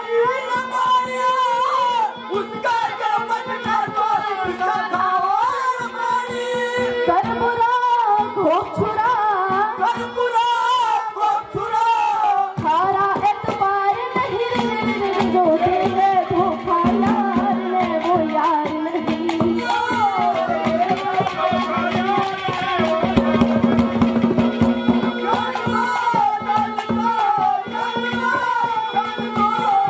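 A woman singing a Haryanvi ragni through a microphone, with hand-drum percussion keeping a steady beat. About halfway through, a steady held note comes in under the voice.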